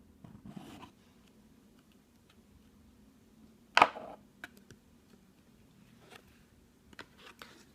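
Hands opening a sunglasses box: a soft rustle of packaging, then one sharp click or knock about four seconds in, followed by a few faint ticks.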